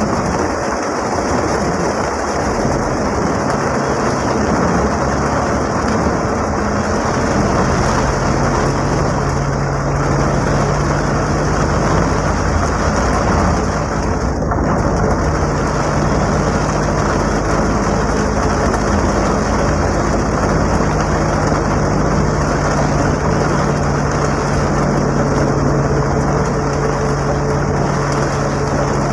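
Rain falling on the roof and windows of a Mitsubishi L300 van, heard from inside the cab as a steady rushing noise, with the van's engine running underneath. A steady low engine hum comes up about seven seconds in and holds.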